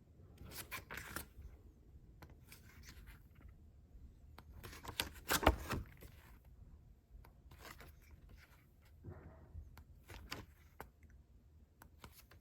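Paper handling as the pages of a planner are turned and flattened: soft rustles, page flicks and light taps, with the loudest handling about five to six seconds in.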